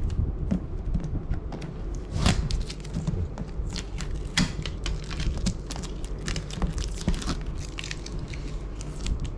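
Fingers picking at and peeling packing tape off a cardboard box: irregular small crackles and scratches, with a couple of louder clicks about two and four and a half seconds in.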